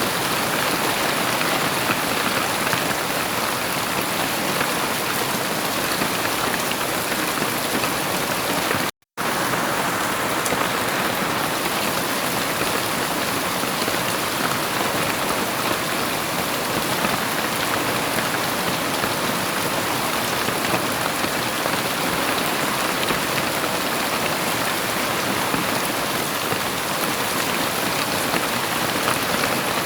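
Heavy rain falling steadily as a dense, even hiss, without thunder. The sound drops out completely for a split second about nine seconds in.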